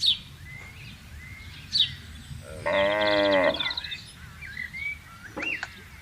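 A cow mooing once, a single call of about a second in the middle, with short bird chirps before and after it.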